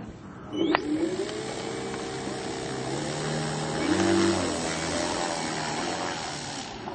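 Engine of a 78-inch Extra radio-control aerobatic plane running up with its propeller: it revs up sharply about half a second in, holds steady, then throttles up louder around four seconds in for the takeoff roll, and drops away near the end as the plane moves off down the runway.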